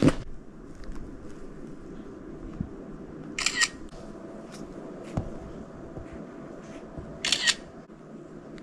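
Camera shutter sound of photos being snapped, twice, about four seconds apart.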